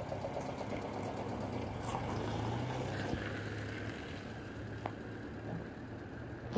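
Renault 9 car engine running with a steady hum that swells a little about two seconds in, ending in one sharp click.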